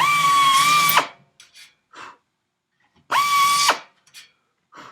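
Pneumatic drill spinning a reamer through rivet holes in aluminium skin and spar to clear burrs and primer: two short runs with a steady high whine, about a second long and then half a second just after three seconds in. A few light knocks between them.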